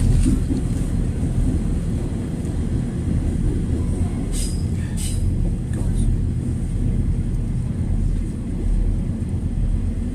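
Steady low rumble of a passenger train running, heard from inside the carriage, with a few brief hissing clicks about four to five seconds in.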